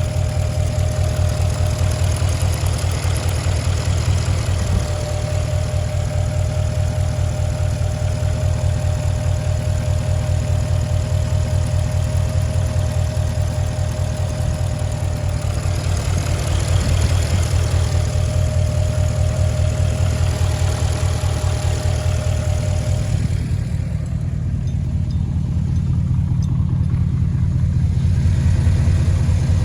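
2008 Porsche Cayenne Turbo (957) twin-turbo V8 idling, with a fast, even ticking running through it and a steady whine that fades out about three-quarters of the way through. The owner asks whether the ticking is normal and says the engine also shakes a lot at idle.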